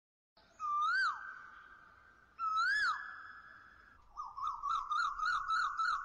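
Whistle sound effects: two swooping whistles that rise and fall, each leaving a tone that slowly fades, then a quick warbling whistle that wavers about three times a second.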